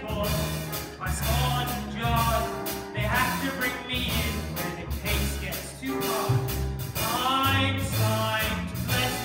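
Mixed choir singing to a chamber-orchestra accompaniment, with low bass notes changing in a steady bouncing rhythm underneath.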